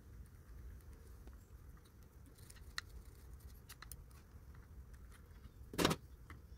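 Faint scratching and small clicks of sandpaper rubbing the soot-blackened contacts of a washing machine motor switch, with one louder short noise near the end.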